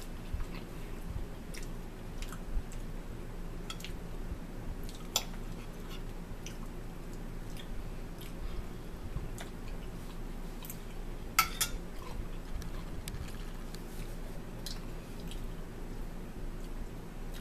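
Chewing of smoked sausage and crackers, with scattered clicks of forks against a plate and a bowl. The sharpest is a quick double clink about eleven seconds in. A steady low hum runs underneath.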